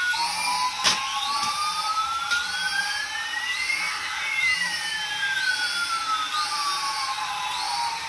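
High whine made of a steady tone with two pitches gliding past each other, one rising and one falling, crossing midway and cutting off sharply at the end, over background music. One sharp click about a second in.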